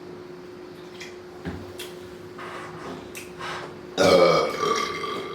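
A woman's loud, drawn-out burp starting suddenly about four seconds in, after a few faint mouth clicks.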